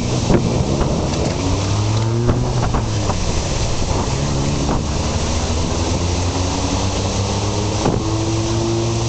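Car engine humming with steady wind and road noise, heard from inside the car; the engine's hum drifts slightly in pitch, and a few sharp taps stand out.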